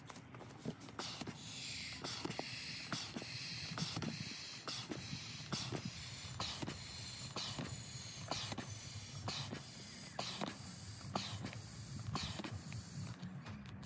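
Electric air pump running, pushing air through its hose into an inflatable kayak seat. It spins up with a rising whine about a second in, runs as a steady hiss and hum, and cuts off shortly before the end, with scattered small clicks throughout.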